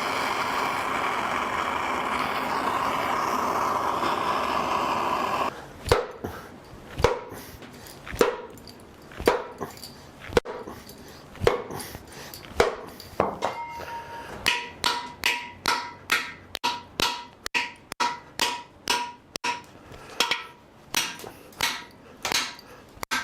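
A steady hiss for about the first five seconds, then repeated hammer blows on a seized, rusted piston in a small-block Chevy 350 cylinder, driving it down the bore. The blows come about once a second and then quicken to nearly two a second, many with a short metallic ring.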